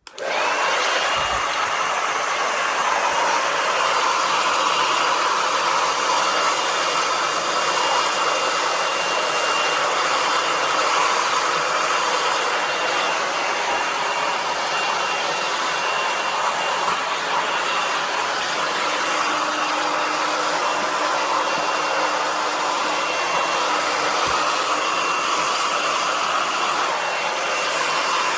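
Hand-held hair dryer switched on and running steadily: a constant rush of air with a high motor whine that rises as it spins up just after it starts.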